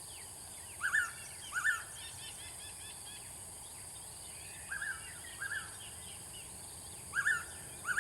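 Blue-winged pitta calling its two-note whistle three times, about every two and a half seconds, over faint chirping from other birds and a steady high hiss.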